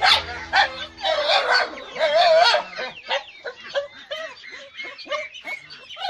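Dogs barking and yipping in quick, repeated calls, thickest in the first couple of seconds and thinning out after.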